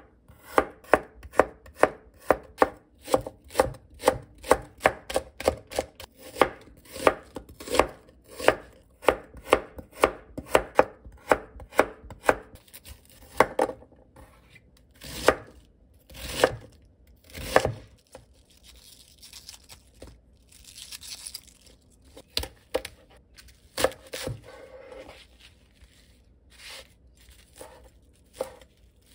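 Kitchen knife chopping garlic, cabbage and perilla leaves on a cutting mat. A quick, even run of about two to three strokes a second gives way about halfway through to fewer, heavier cuts and some rustling of the leaves.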